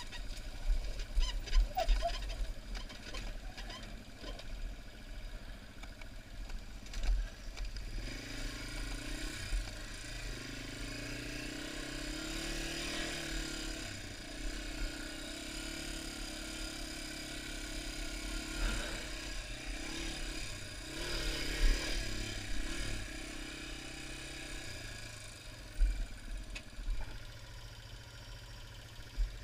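Yamaha TW200's single-cylinder four-stroke engine running under way, its note stronger from about eight seconds in. Irregular low thuds and rumble run through it, louder a few times, from bumps and wind on the helmet-camera microphone.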